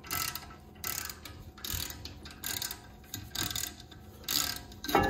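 Hand ratchet with a 6 mm Allen socket clicking in a series of short bursts, about two a second, as it is swung back and forth to back out a brake rotor's retaining screw.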